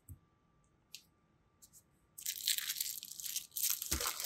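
Clear plastic shrink wrap crinkling and crackling as a wrapped box is handled, starting about two seconds in after a near-quiet stretch with a few faint ticks; a low thump or two near the end.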